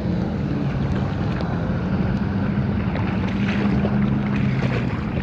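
Jet ski engine running steadily at speed, with wind noise on the microphone.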